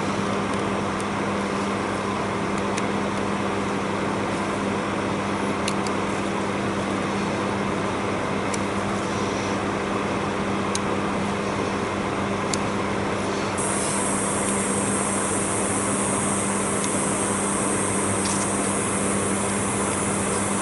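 Steady mechanical hum with a constant low pitch, with a few light clicks of small carburetor parts being handled. A brighter hiss joins about two-thirds of the way through.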